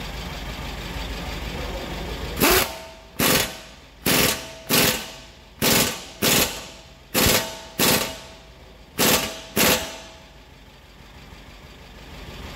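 Ingersoll Rand pneumatic impact wrench hammering a bolt tight in about ten short trigger bursts, starting a couple of seconds in and each under a second apart. The bolt is run down until it no longer turns.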